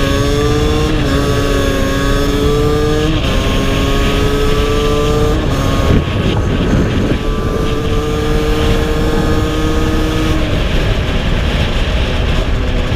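Aprilia SX 50's 50 cc two-stroke engine pulling under way, its pitch climbing slowly and dropping sharply at upshifts about three and five and a half seconds in. A brief rush of noise comes around six seconds in, then the engine holds a steady pitch and eases off near the end.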